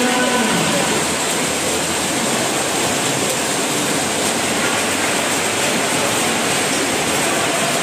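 Steady, loud crowd din of a futsal match. A shouted voice fades out about half a second in.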